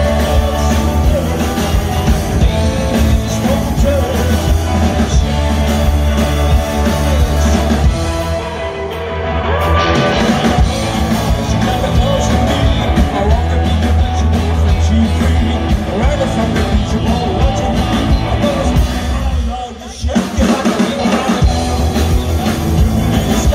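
Live rock and roll band playing loud through the PA: electric guitar and bass guitar with a singing vocal. The band drops out briefly about twenty seconds in, the low end missing for a moment before the full band comes back.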